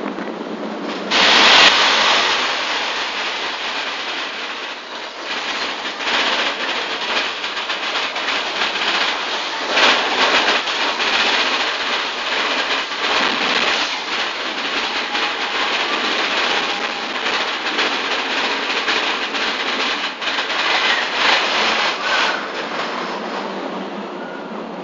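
Mine-train roller coaster cars running at speed along the track, wheels rattling and clattering. It jumps up suddenly about a second in and stays loud until it eases off near the end.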